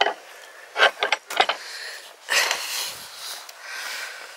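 Handling noise as a hiker with a handheld camera passes a wooden gate or stile: a few sharp knocks and taps in the first second and a half, then breathy, hissing rustles.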